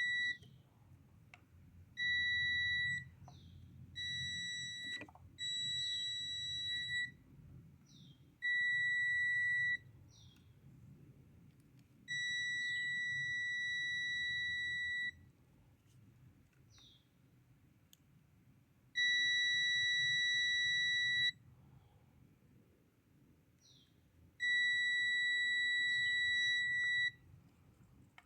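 Steady high electronic beep tone sounding on and off in irregular stretches of about one to three seconds, with short falling chirps between the beeps.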